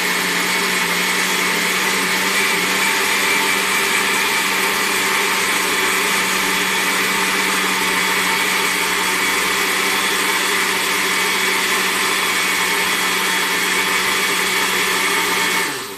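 Small electric seed grinder running steadily at full speed, grinding soaked flaxseeds in water; the motor winds down and stops just before the end.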